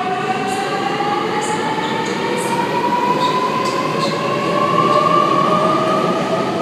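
Sydney Trains Millennium (M set) electric train pulling out and gathering speed, its traction motors giving a steady whine made of several tones that rise slowly in pitch as it accelerates, over the rumble of the train.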